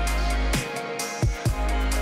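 Background music with a deep bass line and sharp drum hits.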